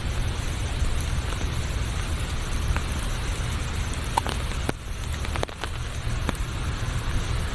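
Steady rain over a low rumble, with scattered sharp ticks of single drops landing close by; the sound dips briefly a little past halfway.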